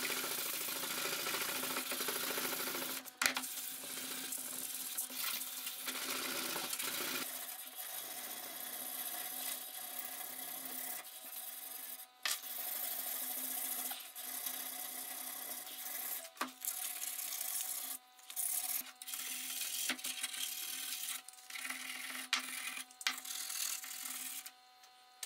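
Rusty steel cleaver blade being hand-sanded, abrasive rubbing back and forth over the metal. It comes as a run of short clips with sudden cuts between them, and the rubbing stops shortly before the end.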